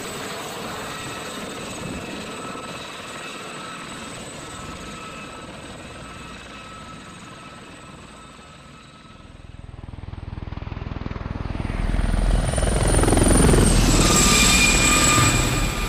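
Aérospatiale Gazelle helicopter: its turbine whine and rotor sound slowly fade away. About ten seconds in, the helicopter comes back, rising quickly to a loud close pass with a beating rotor, and its high turbine whine drops in pitch as it goes by.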